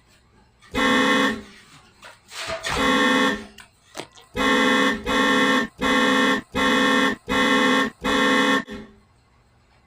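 Air horn blasting: one blast about a second in, then a rapid run of about six short, evenly spaced blasts that stops near the end.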